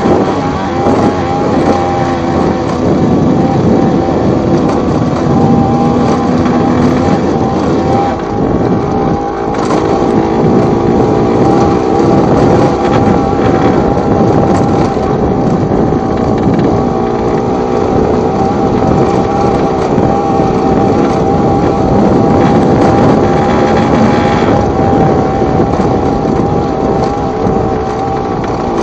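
Single-cylinder two-stroke engine of a Yamaha TZR / MBK X-Power motorcycle, bored out to 90 cc, running under way at a fairly steady engine speed, with wind noise on the microphone.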